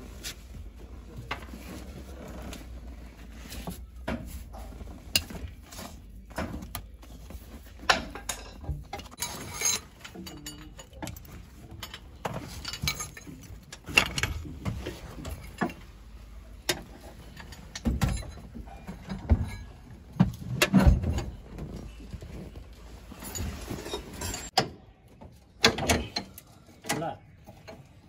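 Socket ratchet wrench clicking and metal tools and parts clinking and knocking as bolts are undone on a pickup truck's propeller-shaft joint and gearbox. The knocks come irregularly, some of them sharp.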